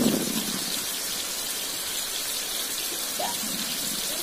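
Chopped ridge gourd sizzling steadily in oil and its own juices in a kadai, the pieces nearly cooked soft.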